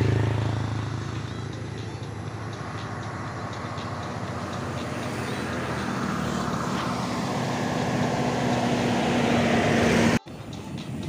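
Motor vehicle engine and road noise: one passes close at the start and fades, then the engine sound grows steadily louder until it cuts off suddenly about ten seconds in.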